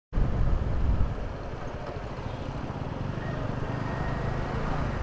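Steady low rumble of a moving road vehicle, engine and road noise running evenly.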